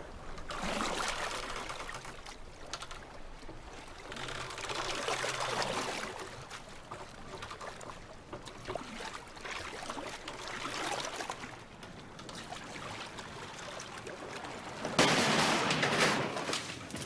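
Water sloshing and lapping around a small boat on a lake, coming in slow swells about every five seconds. About fifteen seconds in, a louder rush of noise lasts a couple of seconds.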